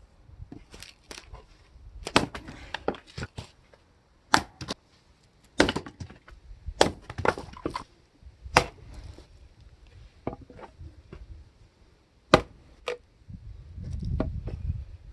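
Firewood logs cracking and splitting apart in a Tiya 8-ton hydraulic log splitter, with a dozen or so sharp cracks and knocks of split pieces at irregular intervals and a low rumble swelling near the end.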